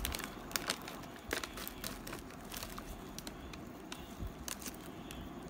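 Plastic cookie pouch being crinkled and torn open by hand at its top tear strip, an irregular run of crackles and rustles.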